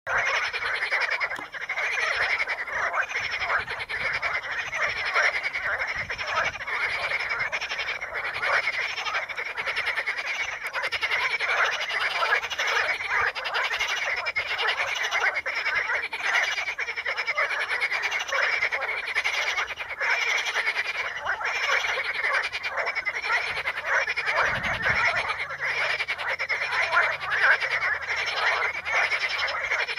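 A dense chorus of many frogs croaking over one another without a break.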